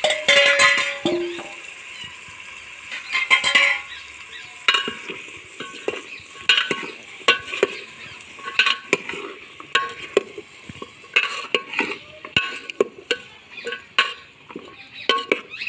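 A spatula stirring and scraping potatoes, cauliflower and peas frying in a pan, in repeated short strokes about once or twice a second over a steady sizzle.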